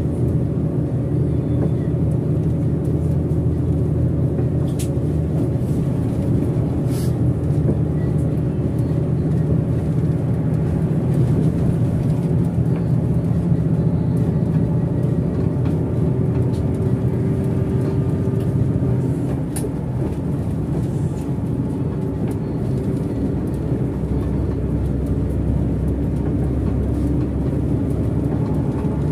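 Hino RK8 bus's diesel engine running steadily under way with road noise, its low note shifting now and then and easing off briefly about two-thirds of the way through, with a few faint ticks.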